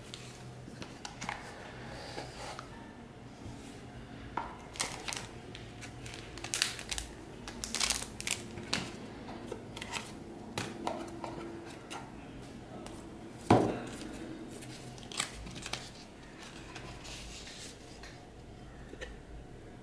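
Hands handling paper and cardboard packaging: paper rustling and a scatter of small clicks and taps as pieces are picked up and put down, with one sharper knock about two-thirds of the way through.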